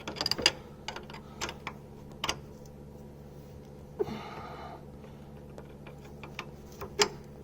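Irregular metallic clicks and taps of hand tools on a nut and bolt as the nut is undone and removed, over the steady hum of a fan heater.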